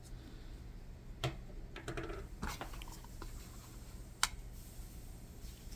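Light clicks and brief scrapes of small metal screwdriver bits and a small hand tool being handled, with one sharp click about four seconds in, over a low steady hum.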